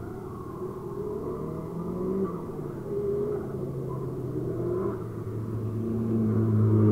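Drift cars' engines revving up and down in the distance, the note rising and falling with throttle, growing louder toward the end as the cars come closer.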